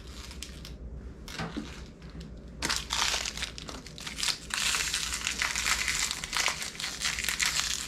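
Crinkly plastic packaging being handled and torn open to get at a mini figure. It is faint for the first couple of seconds, then crackles loudly and almost continuously through the second half.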